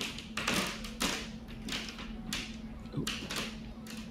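A string of irregular light taps and clicks, roughly two a second, over a steady low electrical hum.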